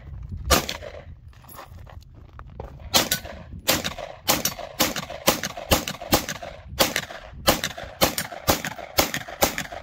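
A CZ P-10 F pistol firing a rapid string of about fifteen shots, roughly two to three a second, beginning about three seconds in, after a single shot near the start.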